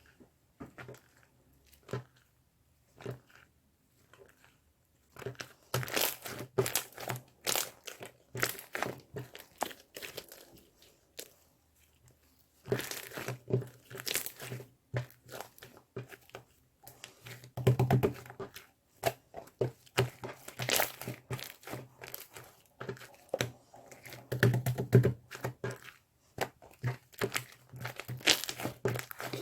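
Irregular crinkling, crackling and tearing in dense clusters, broken by two short pauses, over a faint low hum.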